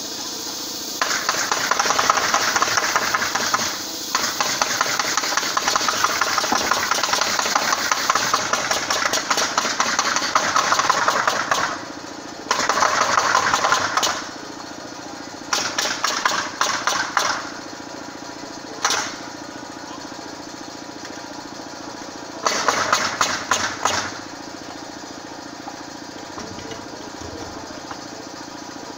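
A small engine runs steadily under repeated loud bursts of power-tool noise on a framing site: one long burst of about ten seconds, then several shorter ones of one to two seconds. The tool noise stops near the end, leaving only the engine.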